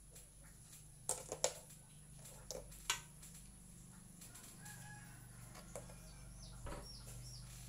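Chess pieces clicking and tapping on a chess board, with a quick cluster of sharp clicks in the first few seconds and a couple of softer ones later. From about halfway, a bird gives faint, short, high chirps that fall in pitch.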